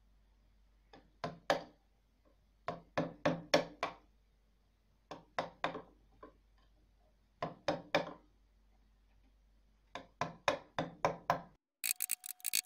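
Chisel cutting wood by hand, clearing out the cavity in a wooden cello body: short, sharp cuts in quick groups of three or four, with pauses between. Near the end, music with a fast ticking beat comes in.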